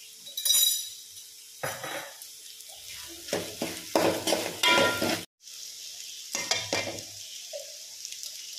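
A metal slotted ladle scrapes and clinks against a pan, stirring turmeric into chopped okra and onion frying in oil, with a steady sizzle underneath. The stirring comes in several spells, and the sound cuts out for a moment about five seconds in.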